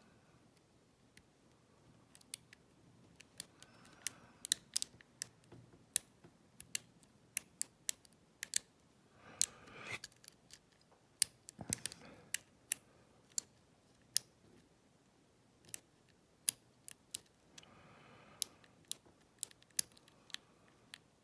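Lock pick working the pins of an Abus Buffo euro cylinder: irregular sharp metallic clicks and ticks as the pins are lifted and set, with a short rubbing noise about halfway through.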